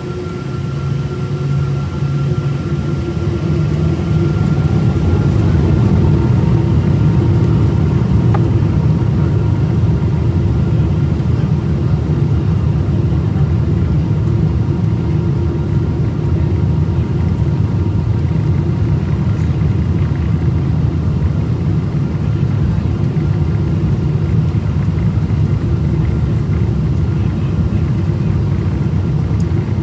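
Cabin noise of a Boeing 777-200 on its takeoff roll. The twin turbofan engines spool up over the first few seconds with a faint rising whine, then hold a loud, steady low rumble as the jet accelerates down the runway.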